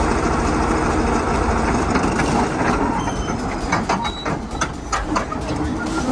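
Crawler bulldozer running, a low diesel rumble under loud, irregular metallic clanking and clatter from its steel tracks.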